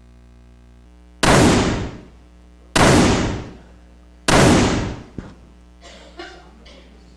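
Three gunshot sound effects from the presentation slide, about a second and a half apart, each a sharp bang with a tail that dies away in the hall.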